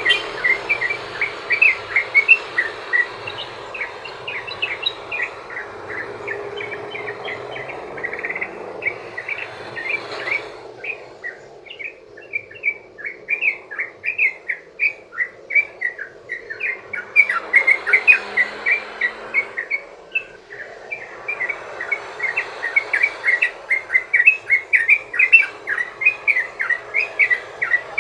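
Yellow-vented bulbul (trucukan) singing a long, rapid run of short chirps, several a second, over a steady background insect drone.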